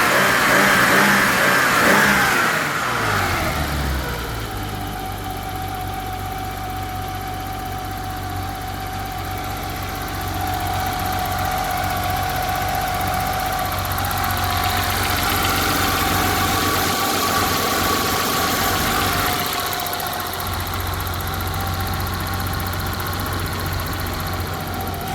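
Newly fitted engine, just started on fresh spark plugs: its revs fall over the first few seconds and it settles into a steady idle, which rises slightly in the middle and then eases back.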